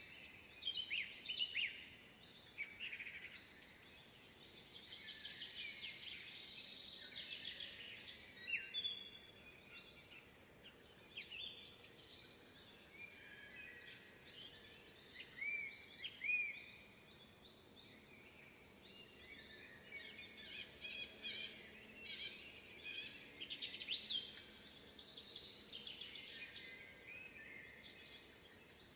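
Several songbirds singing at once in a spring forest: overlapping chirps, trills and short whistled phrases over a faint steady background, with a few louder calls standing out now and then.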